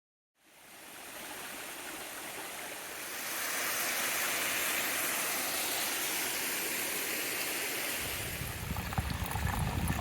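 Creek water running over rocks: a steady rush that fades in at the start and swells a little about three seconds in. A low rumble joins near the end.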